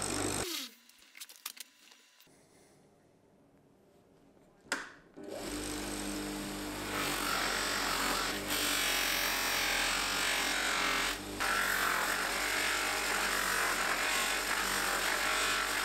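Electric buffing wheel polishing a cast aluminium piece: the motor cuts off abruptly about half a second in, a few light clicks follow in the near quiet, then the motor starts again about five seconds in and runs steadily with a hiss of the metal against the wheel.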